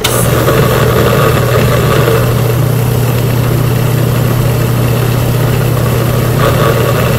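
Countertop blender switched on and running steadily, its motor giving a loud, even low hum and whir as it purées a full jar of chopped peppers, onions, garlic and cilantro for sofrito.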